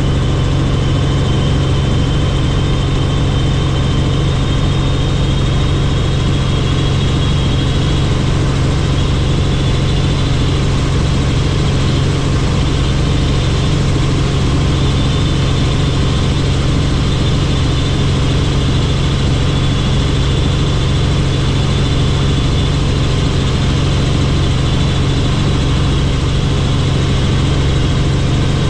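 Helicopter in flight: a steady low drone of rotor and engine, with a faint high whine over it.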